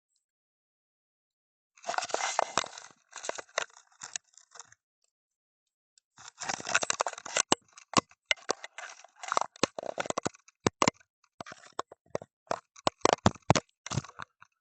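Irregular clicking and crackling scrapes picked up by an underwater fishing camera, coming in bursts with dead-silent gaps between them, the densest run of sharp clicks starting about six seconds in.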